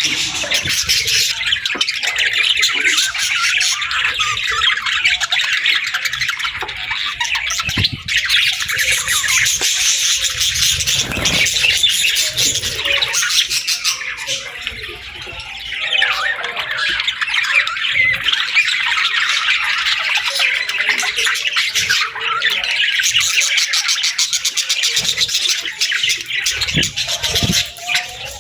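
A flock of budgerigars chattering and chirping continuously, many birds at once.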